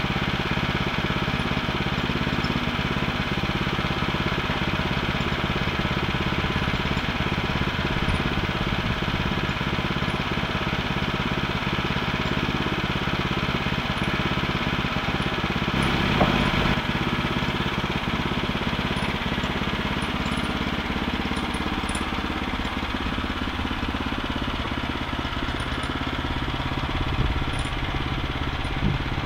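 Gasoline engine of a Woodland Mills HM122 portable bandsaw mill running steadily, driving the blade. Its note shifts about two-thirds of the way through, with a couple of brief knocks.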